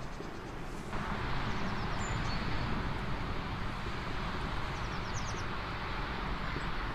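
Steady outdoor background noise that gets a little louder about a second in, with a few faint bird chirps.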